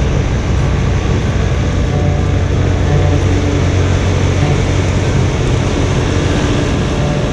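John Deere 3046R compact tractor's diesel engine running steadily under load, driving its front-mounted snowblower.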